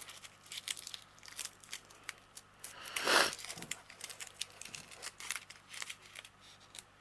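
Masking tape being peeled off a rolled diamond painting canvas, with crinkling and small clicks as the canvas is handled, and one louder tearing rip about three seconds in.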